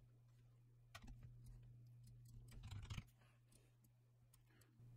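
Near silence: a few faint computer mouse clicks and keyboard taps over a low steady hum, with one click about a second in and a small cluster around three seconds in.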